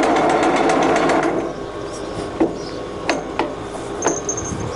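Old Wilson three-phase lathe's geared headstock running at speed with a rapid regular ticking, then stopping about a second and a half in, followed by a few separate clunks and clicks as the speed-change gear levers are moved.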